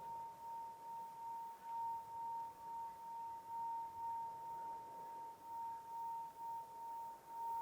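A single sustained pure tone held at one pitch, swelling and fading in loudness about twice a second.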